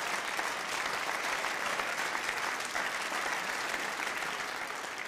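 Studio audience applauding: dense, steady clapping from many hands.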